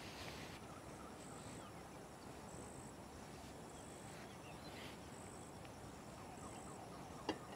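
Faint insect chirping outdoors: a short, high chirp repeats at an even pace, roughly every second and a quarter, over a low background hiss. A single sharp click comes near the end.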